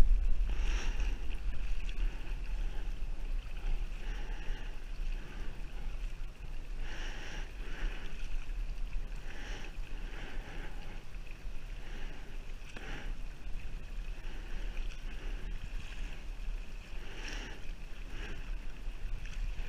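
Double-bladed kayak paddle dipping and pulling through lake water, a splash with each stroke every couple of seconds, over a steady low rumble.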